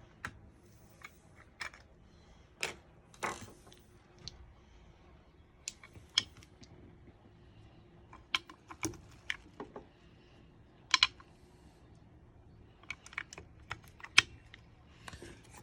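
Four AA batteries being fitted into the battery compartment of a keyless RV door lock: irregular sharp clicks and taps as they are handled and snapped into place, with a quick cluster of clicks about 11 seconds in.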